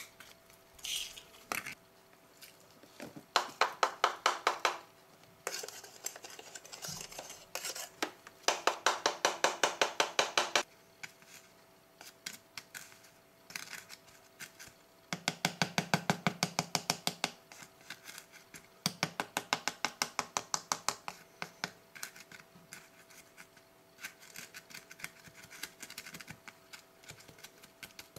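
A finger rubbing ground coffee through a paper funnel into a reusable Cafissimo coffee capsule: bursts of quick scratchy strokes, about seven a second, each lasting a second or two, repeated several times. A faint steady hum lies underneath.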